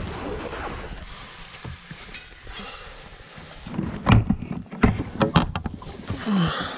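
Handling and rustling noise of someone moving about in a small boat, with several sharp knocks and clatter. The loudest knock comes about four seconds in and a quick cluster follows about a second later.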